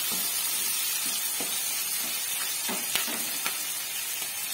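Sliced onions frying in oil in a pan: a steady high sizzle, with a few faint clicks as a wooden spatula stirs them.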